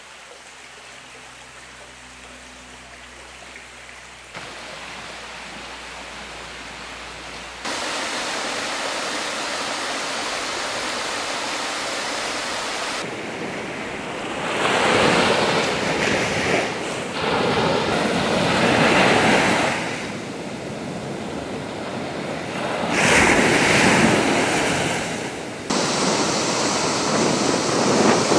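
Ocean surf breaking on the shore, a steady wash of water with waves surging in and falling back every few seconds. For the first several seconds there is only a quieter, even hiss, and the surf grows louder about eight seconds in.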